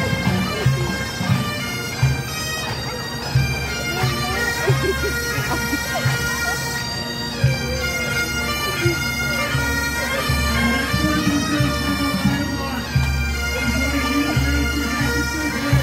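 Marching pipe band of bagpipes playing a tune: steady drones sounding under the chanter melody, with short low thumps every second or so.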